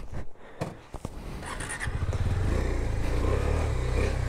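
A KTM Duke 390's single-cylinder engine running as the motorcycle pulls away slowly on a dirt trail. A few faint clicks come first, then the engine comes up about two seconds in and holds steady.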